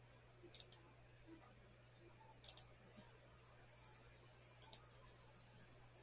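Computer mouse clicking: three clicks about two seconds apart, each a quick pair of sharp ticks.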